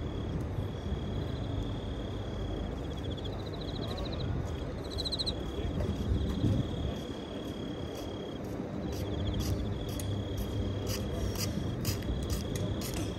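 Futsal play on a court: short sneaker squeaks and, from about ten seconds in, sharp knocks of ball kicks and footfalls. A steady high-pitched whine runs under most of it, breaking off now and then.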